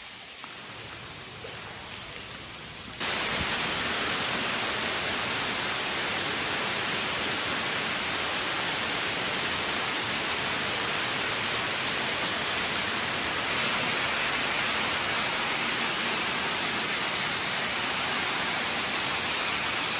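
Water running and splashing down a rock face, a steady rushing hiss that jumps suddenly louder about three seconds in and then holds even.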